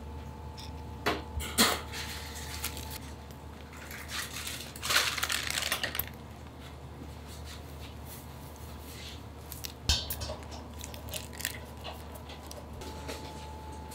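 Kitchen work noise: a few sharp light knocks and clicks, and a short rustling hiss about five seconds in, over a steady electrical hum.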